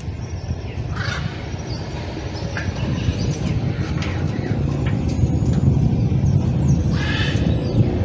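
Blue-and-gold macaw giving a few short, rough calls, one about a second in and a longer one near the end, over a steady low rumble.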